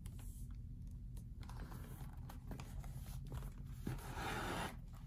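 Leather lace rubbing and scraping as it is threaded through a baseball glove's web, with a longer scraping pull near the end as the lace is drawn tight.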